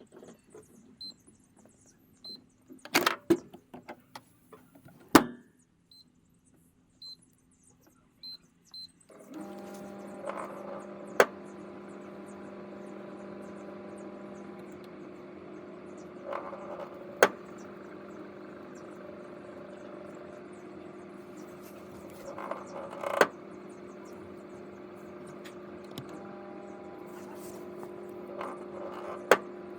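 Microwave oven being set and started: short keypad beeps and a few loud clicks, then about nine seconds in the oven starts running with a steady hum. Sharp snaps cut through the hum roughly every six seconds while it heats the energy drink cans.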